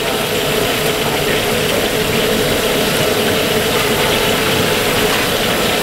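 Fish deep-frying in a wok of hot oil over a gas burner: a steady, dense crackling sizzle as the skin crisps.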